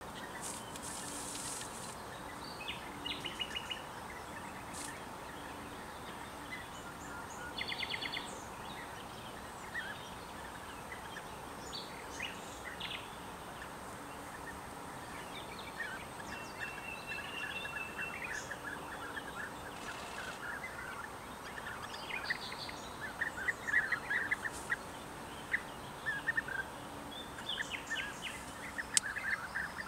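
European bee-eaters calling: short rolling calls, scattered at first and coming thick and fast over the last few seconds, over a steady outdoor hiss.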